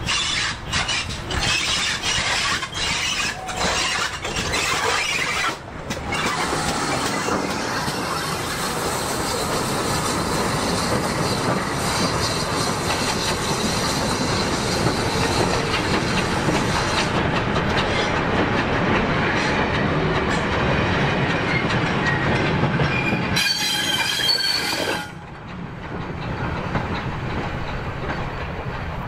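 An ex-GWR 57xx pannier tank steam locomotive passing with sharp exhaust beats for the first few seconds, then a rake of goods wagons rolling by with a steady rumble of wheels on the rails. A brief high wheel squeal near the end, after which the sound drops away.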